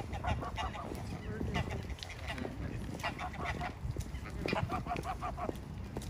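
Greylag geese honking in four quick runs of short, repeated calls, over a steady low rumble.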